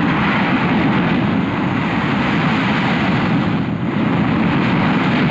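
Twin-jet Gloster Meteor fighters making a low pass, with loud, steady jet noise that holds at an even level throughout.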